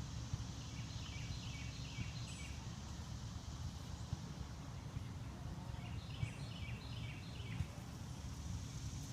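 A songbird sings two short phrases of quick, repeated falling notes, about four seconds apart, over a steady low rumble.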